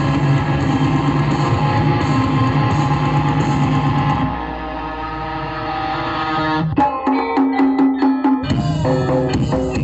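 Music played loud through a 2500-watt outdoor sound system of stacked speaker cabinets, with a heavy bass line. About four seconds in the bass drops away, and near seven seconds the track breaks into sharp, separate hits before the full bass comes back about a second and a half later.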